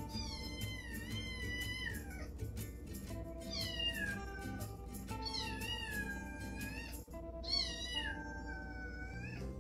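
A cat meowing four times in long, drawn-out calls that bend in pitch, over background music.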